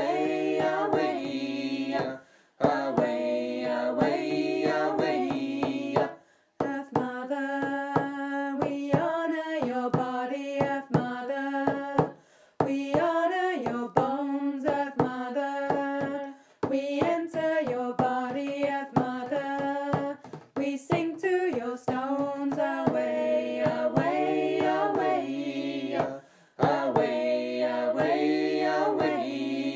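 Voices singing a chant, phrase after phrase with short breaths between, over a steady beat.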